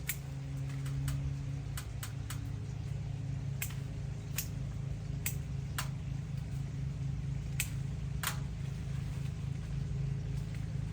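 A motor running steadily with a low hum, with about a dozen sharp clicks or snaps at irregular intervals.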